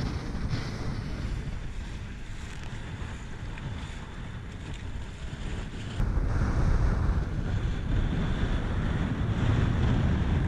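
Strong wind buffeting the microphone over the rush and splash of choppy sea water. It gets suddenly louder about six seconds in.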